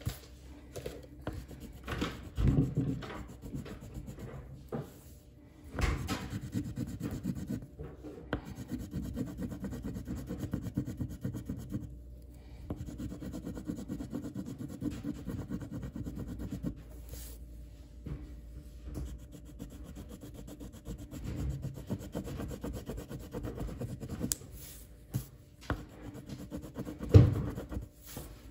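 Colouring in on paper by hand: rapid back-and-forth shading strokes scratching steadily, broken by a few short pauses. A few sharp knocks stand out, the loudest near the end.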